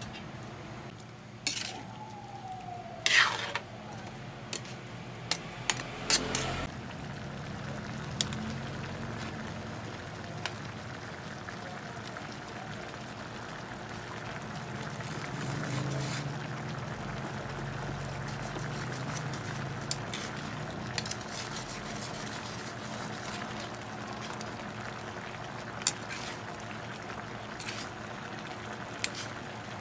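A spatula stirs cubed squash in a wok of simmering coconut milk, over a steady sizzle. The spatula knocks against the wok in several sharp clanks during the first seven seconds, and a few more come later.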